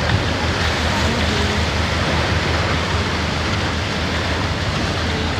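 Steady rush of sea water churning past the hull of a moving boat, with wind on the microphone and a low engine rumble underneath.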